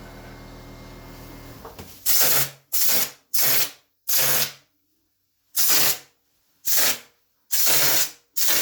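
Short spray bursts of ceiling texture, eight hissing blasts of about half a second each with gaps between them. A steady low hum stops about a second and a half in, just before the bursts begin.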